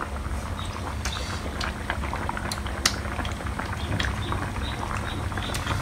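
A pan of lẩu mắm (fermented-fish hotpot broth) bubbling over a fire, with a few scattered light clinks of a metal ladle and chopsticks against the pan and bowls.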